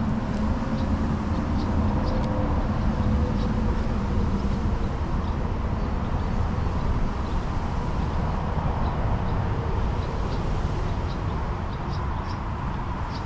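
Steady low rumbling outdoor background noise, with faint short high chirps now and then.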